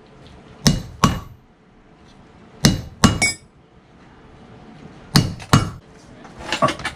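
Hammer striking a hand-held steel leather-working tool into a leather belt on a stone block: three pairs of sharp blows, roughly two seconds apart, with a faint metallic ring. A few lighter knocks near the end.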